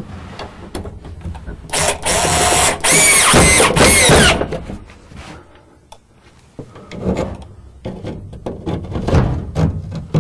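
Power drill driving screws into a sauna heater cover, its motor speeding up and winding down in two runs about two seconds in. Lighter clicks and short bursts follow.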